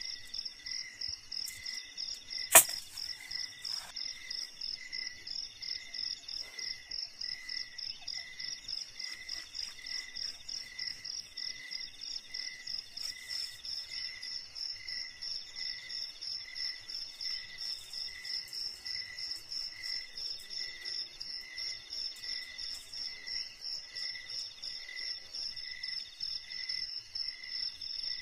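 Steady chorus of forest insects: a high, rapidly pulsing trill with a slower pulse beneath it, unbroken throughout. A single sharp click about two and a half seconds in is the loudest sound.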